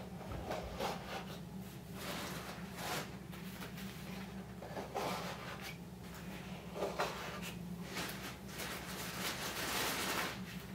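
Leather watch pillows being pressed and adjusted by hand in the cells of a wooden grid: irregular rubbing and scuffing with a few soft knocks.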